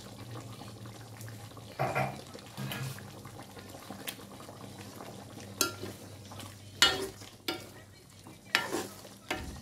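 A spatula stirring chicken wings in gravy in an iron wok, with a low frying sizzle under it. From about halfway it scrapes and knocks against the pan several times, the loudest knock about seven seconds in.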